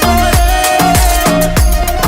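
Upbeat dance music with a thumping bass beat and percussion, about three to four beats a second.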